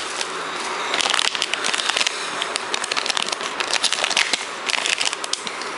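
Bubble wrap and a clear plastic bag crinkling and crackling as they are pulled open by hand to unwrap a small circuit board. It is a dense patter of crackles, heaviest about a second in and again near the end.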